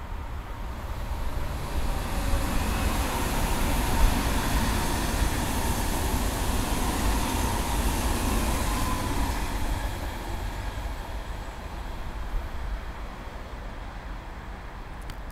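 ICE high-speed electric train passing at speed: a rush of wheel and air noise that swells over about two seconds, stays loud for several seconds as the train goes by, then fades away as it recedes.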